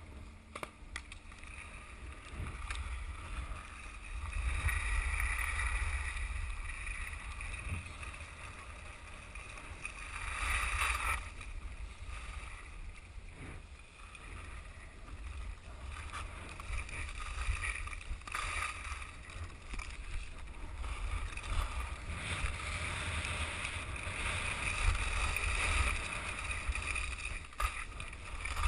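Skis scraping and hissing over packed snow on a downhill run, swelling and fading with each turn, over a steady low rumble of wind buffeting the microphone.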